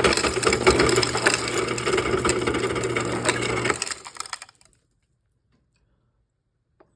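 Whirlpool refrigerator ice dispenser running: the auger motor hums while the crusher grinds and crushed ice clatters out, though cubed is selected. The dispenser is stuck on crushed, a fault the owner traces to a broken solenoid. It stops about four seconds in.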